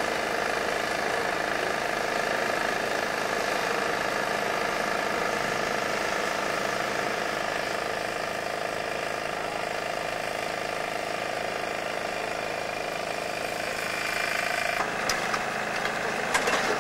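Diesel engine of the excavation machinery running steadily, with a few short sharp knocks near the end.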